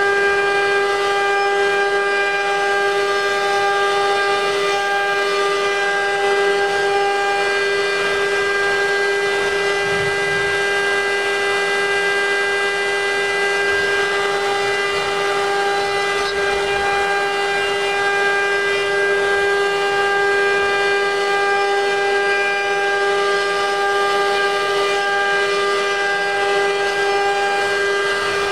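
CNC router spindle running at a steady high-pitched whine as a small bit carves a spiral into a wooden post turning on the rotary axis, with a faint hiss of the cut beneath the whine.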